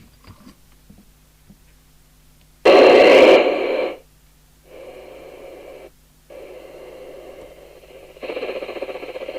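Midland 2001 FM CB radio receiving, its speaker giving out hissing static in separate stretches that switch on and off abruptly, the first one loud and short, the last ones growing louder near the end. A few faint clicks come just before.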